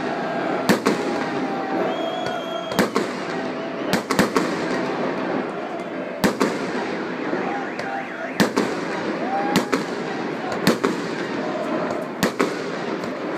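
Fireworks going off: about a dozen sharp bangs at irregular intervals over a steady wash of background noise and voices.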